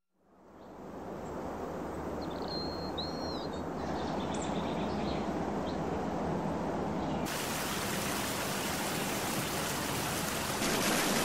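Outdoor garden ambience fading in: a steady rushing hiss with a few short bird chirps about two to four seconds in. About seven seconds in it turns into a brighter, fuller rushing of water falling over a small stone cascade.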